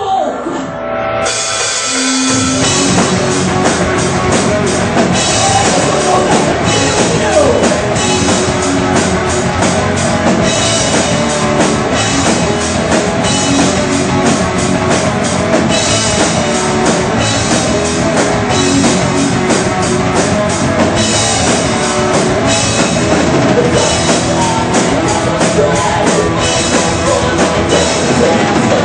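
Heavy metal band playing live: distorted electric guitars, bass and a drum kit with cymbals. It opens with a few held guitar notes, and the full band crashes in about two seconds in.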